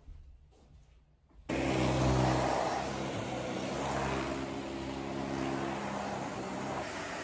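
Dyson upright vacuum cleaner switched on about a second and a half in, its motor then running steadily with a low hum as it is pushed back and forth over carpet.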